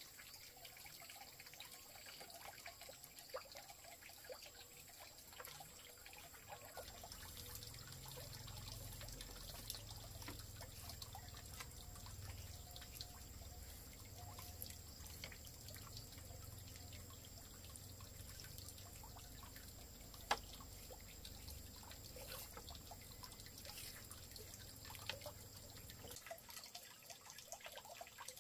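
Faint, irregular small clicks and taps, with a low rumble through most of the middle and one sharper click about two thirds of the way through.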